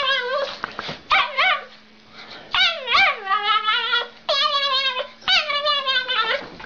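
Small dog making a run of high-pitched, wavering whining yowls. There are about six calls, each up to about a second long, and each swoops up in pitch before sliding and wobbling back down.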